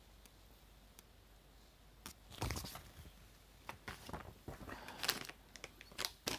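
Plastic snack packet rustling and crinkling as it is handled, a string of irregular crackles starting about two seconds in.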